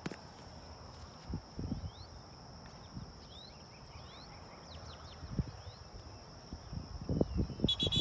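Outdoor field ambience: small birds calling in short chirps over a steady high-pitched drone, with a few dull low thumps that gather near the end.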